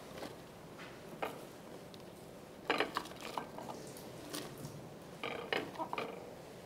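Scattered light knocks and clinks against a stainless steel pot as shallots and mushrooms are dropped in by hand on top of a braised beef stew.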